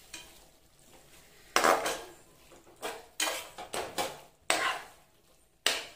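Metal spoon scraping and clinking against the inside of a pressure cooker while stirring mutton pieces into masala. There are about seven irregular scrapes, the first about one and a half seconds in.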